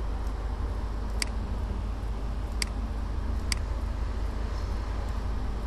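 Three short, sharp computer mouse clicks over a steady low electrical hum and hiss.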